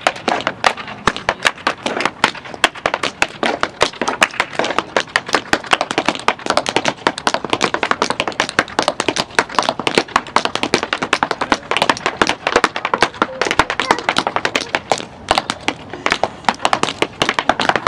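Tap shoes striking plywood boards laid on paving: fast, unbroken runs of sharp taps, many to the second, varying in accent.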